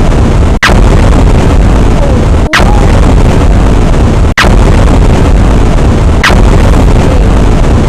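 Very loud, distorted gunfire-and-explosion sound effect, a noisy blast repeated back to back with a fresh onset about every two seconds.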